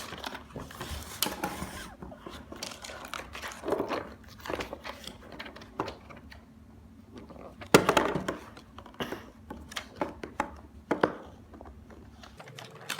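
GoPro packaging being handled and pulled at: plastic crinkling and rustling with scattered clicks and knocks, one louder knock about eight seconds in.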